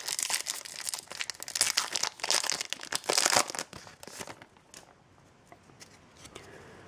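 Foil booster pack wrapper crinkling and being torn open, a dense crackle for about three and a half seconds, then only faint occasional ticks.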